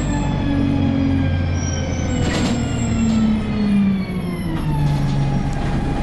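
A vehicle engine running, its pitch sliding slowly down and then rising again near the end as the engine speed changes.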